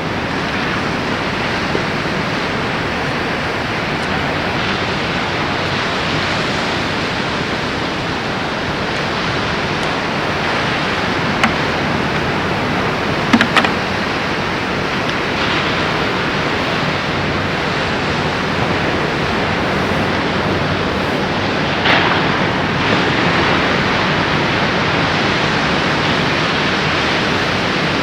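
Steady rushing of ocean surf, with a few brief clicks about halfway through and again later.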